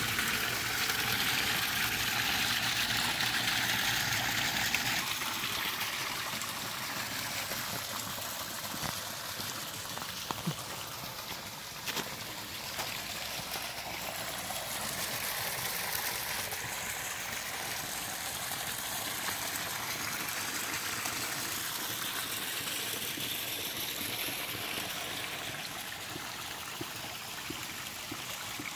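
Water pouring over a small stacked-stone waterfall into a garden pond and trickling down a rocky stream: a steady splashing rush, a little louder for the first five seconds or so.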